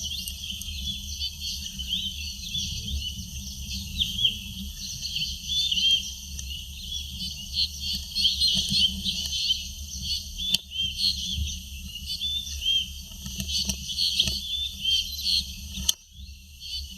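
A dense chorus of many birds chirping and twittering over a low rumble of wind or handling noise.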